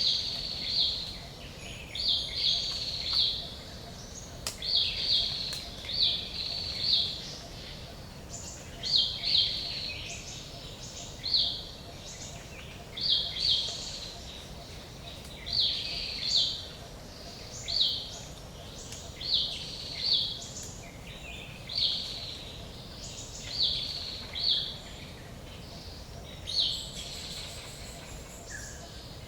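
Forest ambience: a bird calls repeatedly with short high chirps, mostly in groups of two or three every couple of seconds, over a steady low background rush.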